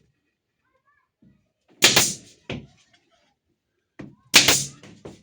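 Knocks and thuds of work on wooden parts: two loud knocks about two and a half seconds apart, each with a lighter knock close by.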